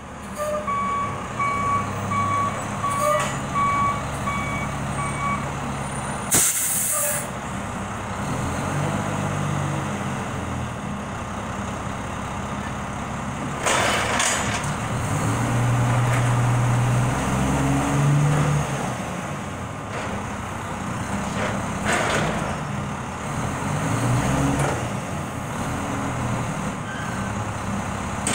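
Front-loader garbage truck (Volvo WX chassis with Labrie Optimizer body) working a dumpster: a string of reversing beeps for the first five seconds, a short sharp air-brake hiss at about six seconds, then the diesel engine revving up and down in steps as it powers the hydraulic arms lifting the dumpster over the cab. A few short noisy bursts come about halfway through and later.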